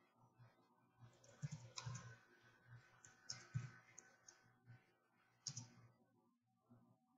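Faint, scattered keystrokes on a computer keyboard as a short command is typed.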